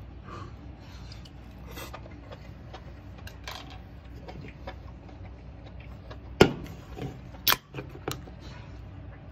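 Light scraping and tapping against a hot sandwich maker, then a sharp knock and, about a second later, a loud crack as an aluminium beer can is handled, with a smaller click just after.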